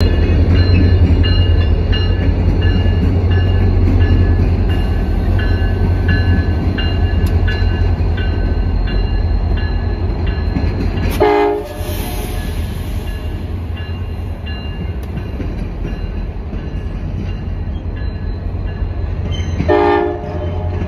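CSX diesel locomotives and passenger cars rumbling across a steel girder bridge, heaviest while the locomotives pass, with the wheels clacking regularly. A short train horn blast sounds about halfway through, and another near the end.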